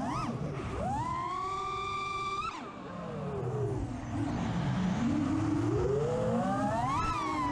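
FPV quadcopter's Xing 2306 brushless motors and props whining, the pitch gliding with throttle. It climbs and holds high for about a second and a half, then drops sharply to a low dip, climbs to a peak near the end and falls again.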